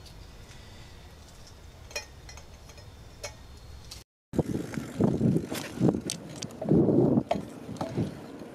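A low steady hiss with a few light clicks, then, after a sudden cut, irregular rustling and knocking bumps, the noise of a camera being carried or handled on the move.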